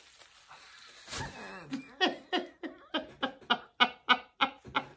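A woman laughing: a run of short, rhythmic bursts of laughter, about three a second, starting about two seconds in.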